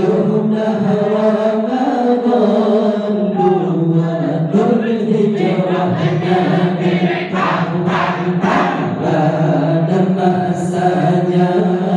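A large group of male voices chanting dike Aceh, the Acehnese devotional dhikr, together in unison without instruments, in long, slowly bending melodic lines.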